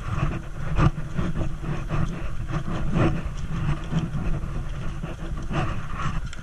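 Footsteps of a group of people walking on a wooden walkway: irregular knocks and scuffs over a steady low rumble.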